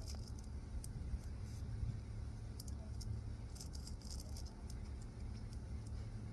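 Steady low rumble of outdoor background, with scattered faint ticks and crackles of handling as the cigar is held and brought to the mouth.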